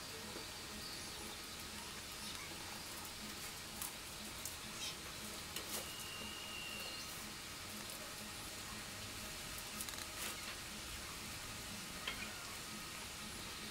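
Dried palm-leaf strips rustling and crackling as they are bent and tucked into a woven mat, with a few sharper crackles scattered through.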